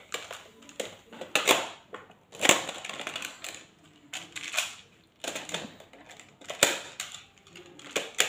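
Plastic magnetic building tiles clicking and clacking as they are handled and snapped together, in irregular clacks with a few louder ones.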